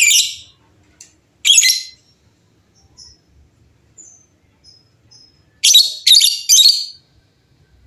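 Lovebirds calling in short, loud, high-pitched bursts: one at the start, another about a second and a half in, a few faint chirps in between, then three bursts in quick succession near the end.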